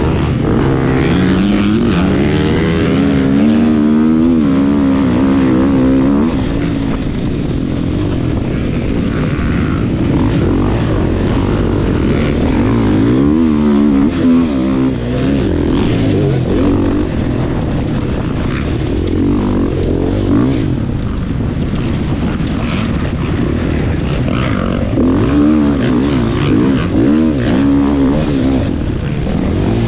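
GasGas MC 450F dirt bike's single-cylinder four-stroke engine, ridden hard at race pace, revving up and down constantly as the throttle opens and closes and the gears change.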